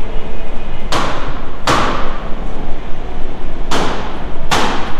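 Four loud bangs with an echoing tail, in two pairs (about a second in, then near the end): large metal oven wall panels being knocked and set into place in a big, reverberant shop.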